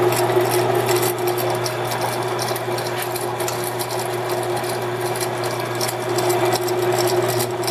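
ENCO 7" x 12" horizontal band saw running steadily, its 1 horsepower 115 volt motor and belt drive giving a constant hum.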